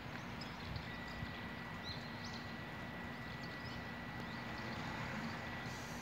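Outdoor ambience in heavy wet snowfall: a steady hiss with scattered small taps and drips. Faint high chirps come and go, and a thin steady high tone sounds from about a second in until near the end.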